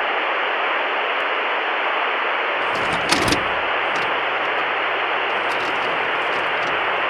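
Steady static hiss, like radio or TV static, with a few faint crackles and clicks about three seconds in.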